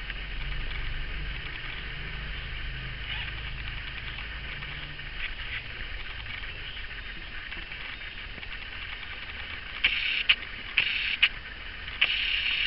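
Red-footed tortoise 'singing': three short hissing sounds near the end, over a faint steady hiss, with a couple of sharp clicks between them.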